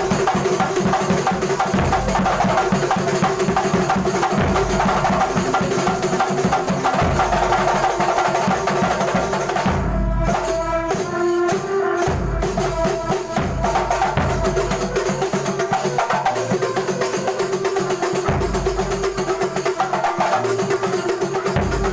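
Kuntulan music: a percussion ensemble of frame drums and other hand percussion playing a dense, fast rhythm. The texture thins briefly about ten seconds in, then picks up again.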